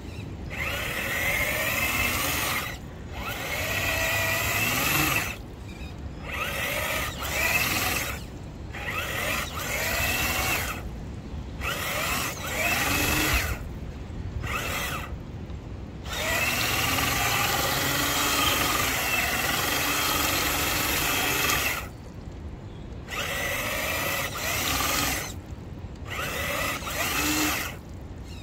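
Brushed Traxxas Titan 550 motor and drivetrain of an RC crawler whining in repeated throttle bursts. The pitch rises in each burst and drops away briefly between them, with one longer run in the middle.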